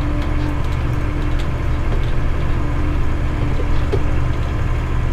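Tractor engine running steadily at raised revs while driving a hay tedder as it turns hay, with a constant steady tone throughout.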